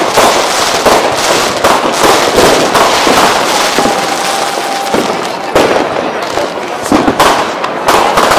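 Fireworks bursting overhead: a dense, unbroken run of bangs and crackles. A steady whistling tone runs for about a second and a half near the middle.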